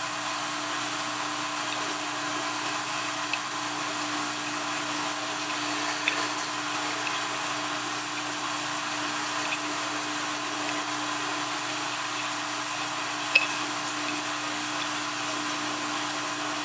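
Steady background hum with a constant low tone, broken by a few light clicks and taps as a homemade gasket is pressed into a motorcycle gas cap; the sharpest click comes near the end.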